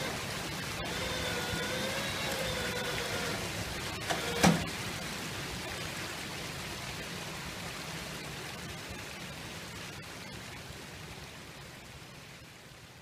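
Shallow creek water running over rocks, a steady rushing hiss. A faint wavering whine runs through the first three seconds or so, and a single sharp knock comes about four and a half seconds in; the sound then slowly fades.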